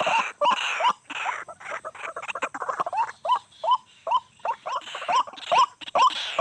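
White-breasted waterhen (ruak-ruak) calling: a rapid run of short notes, each rising in pitch, about two or three a second.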